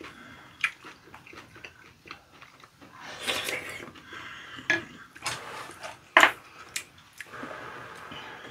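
Spoons clinking and scraping against ceramic bowls of curry rice during a meal, with several sharp knocks, the loudest about six seconds in.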